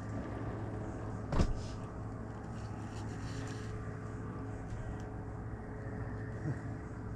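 A motor running steadily at a low, even pitch, with one sharp knock about a second and a half in.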